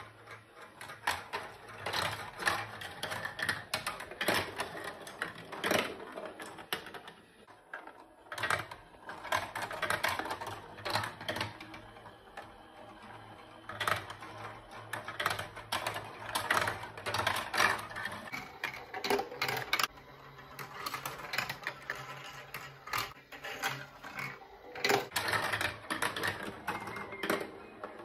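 Plastic balls rolling and clattering through a VTech Marble Rush plastic marble run: a busy, irregular stream of clicks and rattles, with a short lull about eight seconds in.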